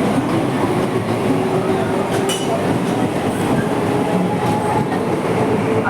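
Mumbai suburban electric local train running on its rails: a steady rumble with faint whining tones and a few sharp metallic clicks about two seconds in.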